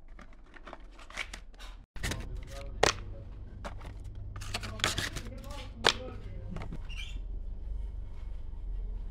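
Paint-brush workshop sounds: sharp clicks and knocks from hand work on a steady low machine hum, with indistinct voices. The sound cuts out briefly about two seconds in.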